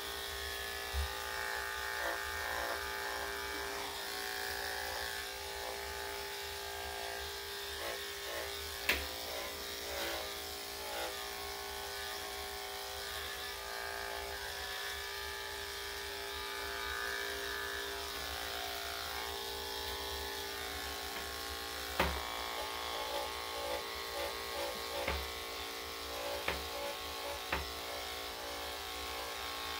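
Corded electric dog clippers running steadily as they shave a Yorkshire terrier's coat, a constant motor hum. A few short clicks break in, the loudest about two-thirds of the way through.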